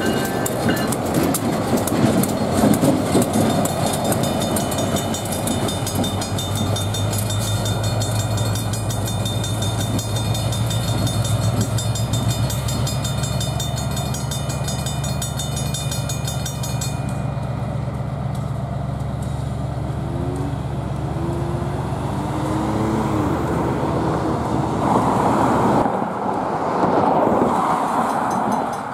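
Steady drone of an EMD SW1500 diesel switcher's engine as the train moves slowly over a grade crossing, with the crossing's bell ringing rapidly over it until about two-thirds of the way through.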